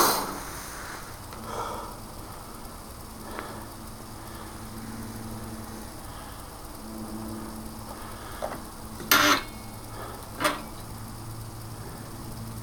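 A low steady hum with a few short knocks, the loudest about nine seconds in and a second one about ten and a half seconds in.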